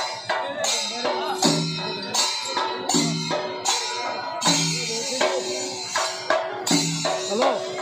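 Percussion music with drums and small cymbals or jingles in a steady repeating rhythm, a strong pitched drum beat about every one and a half seconds, and a wavering melodic line between the beats.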